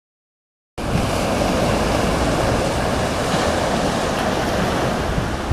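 Strong wind buffeting the microphone over a steady, loud rushing noise that starts suddenly less than a second in.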